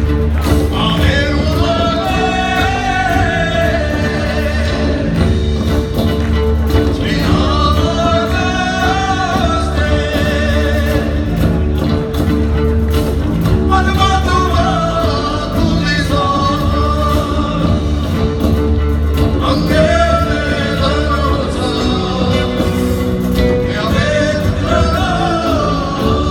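Live rock band performing, a singer holding long wavering phrases about every five to six seconds over a heavy bass and sustained instrumental notes.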